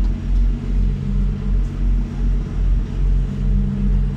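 A small boat's engine running steadily, a low throb that pulses about twice a second.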